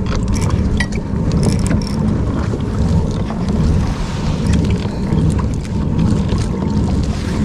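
Steady low rumble of wind buffeting the microphone, with a few sharp clicks in the first two seconds.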